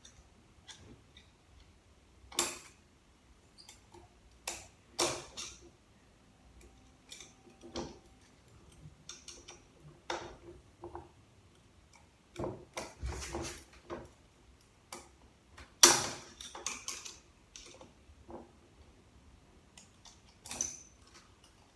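Irregular metallic clicks, taps and clinks as tools and parts of a ZF automatic transmission are worked loose by hand, with the loudest knock about two-thirds of the way through.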